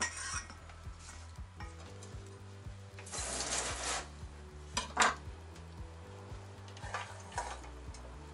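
Kitchen knife cutting winter melon on a plastic cutting board: a long scraping slice about three seconds in, and a few sharp knocks of the blade on the board around five and seven seconds, over soft background music.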